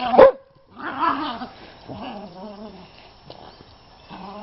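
Dogs play-fighting over a stick: one sharp bark right at the start, then low, wavering growls coming and going.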